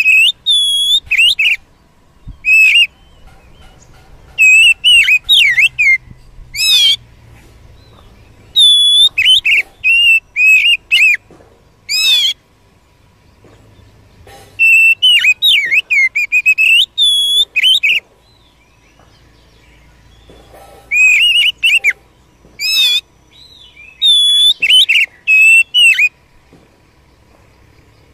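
Oriental magpie-robin singing: short phrases of clear whistled notes that rise and fall, some in quick repeated runs, broken by pauses of one to three seconds.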